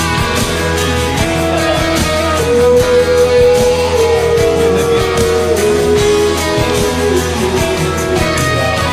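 Instrumental section of a pop-rock karaoke backing track, led by guitar, with a held melody line over a steady bass and no singing.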